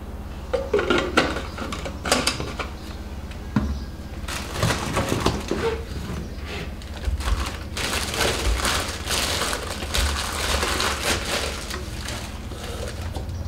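Irregular crinkling and rustling handling noises with a few sharp knocks, denser in the middle, over a steady low hum.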